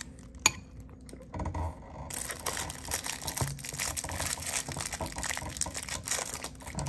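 Food and packaging being handled while a portion is served: a single sharp click about half a second in, then from about two seconds in a dense run of small clicks and crinkling.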